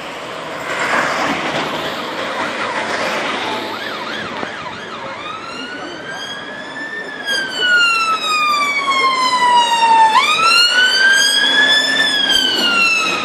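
Ambulance siren wailing in slow rising and falling sweeps, getting louder as it drives past close by.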